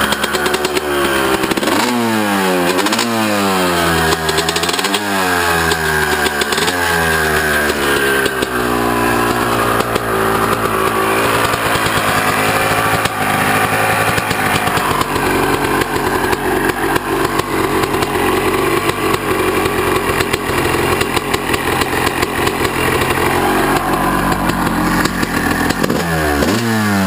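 2002 Honda CR250R's single-cylinder two-stroke engine revved in quick repeated throttle blips with no load on its stand, each rev rising and falling, about every second and a half. It then settles into steadier running at a more even pitch, and the blipping starts again near the end.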